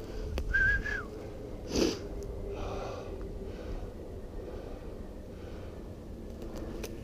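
A falconer's recall whistle to his goshawk: one short, steady high whistled note that wavers slightly and drops at the end. About a second later comes a short, sharp exhale close to the microphone.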